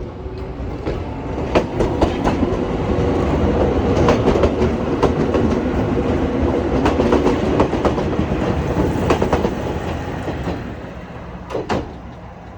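Chichibu Railway train passing close by at a level crossing. Its rumble builds, holds and fades away, while the wheels click in quick pairs over the rail joints.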